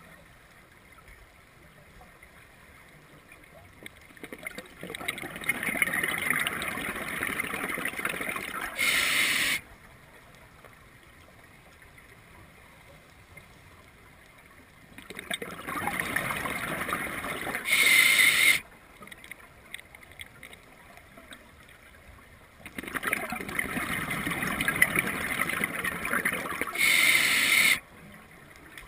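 Scuba diver breathing through a regulator in three slow cycles. Each breath is several seconds of crackling, bubbling exhalation, ended by a short, loud hiss of inhalation, with quiet gaps of several seconds between breaths.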